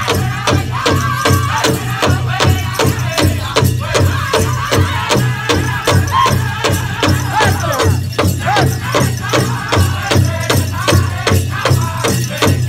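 Powwow drum group: a large drum struck in a steady, even beat by several drummers, under a group of men singing in high voices.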